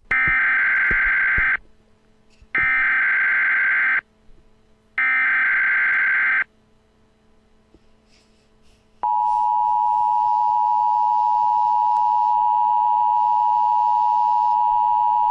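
Emergency Alert System SAME header: three bursts of warbling digital data tones, each about a second and a half long and about a second apart, marking the start of a new alert. After a pause of a couple of seconds, the steady two-tone EAS attention signal begins about nine seconds in and holds.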